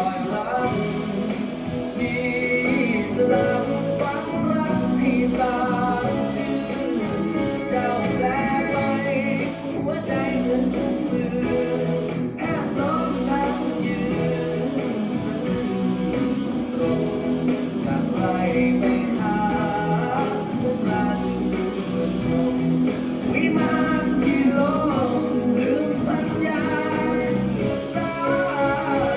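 A song played with singing over guitar accompaniment, steady throughout.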